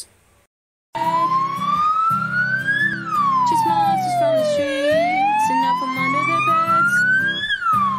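Ambulance siren wailing in slow sweeps, rising, falling and rising again, each sweep taking two to three seconds, over a steady low hum. It starts suddenly about a second in, after a moment of silence.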